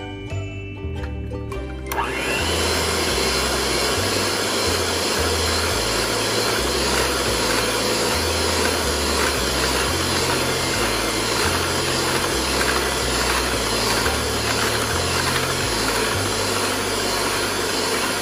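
An electric hand mixer switches on about two seconds in and runs steadily, its beaters whipping cake batter in a glass bowl. Background music with a stepping bass line plays underneath.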